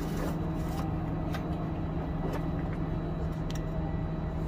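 A steady low mechanical hum, with a few light clicks scattered through it.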